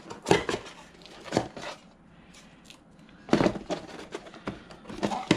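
Cardboard box and packaging being handled: a series of knocks and scrapes with quieter ticks between, the loudest about a third of a second in, about a second and a half in, around three and a half seconds in, and near the end.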